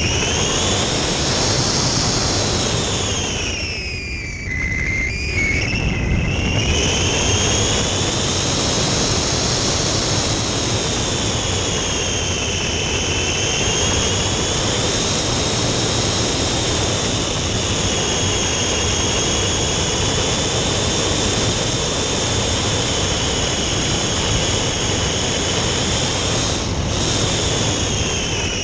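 Onboard sound of a Phantom RC flying wing's motor and propeller whining under a rush of air noise. The whine drops in pitch about four seconds in as the motor slows, then climbs back and swells gently up and down through the rest of the flight.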